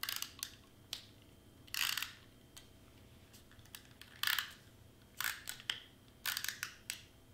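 Double-sided tape worked from a handheld tape dispenser and pressed down around a foam shaker's edge: a string of short crackling, scratchy bursts with a few sharp clicks, coming at uneven gaps.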